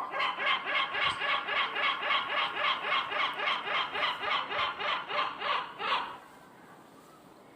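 A gull calling in a long rapid run of short, repeated notes, about four or five a second, which stops about six seconds in.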